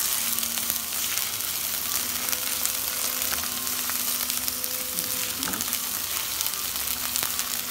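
Sliced spring onions sizzling in hot oil in a nonstick pan, a steady hiss with fine crackles, as they are stirred with a silicone spatula.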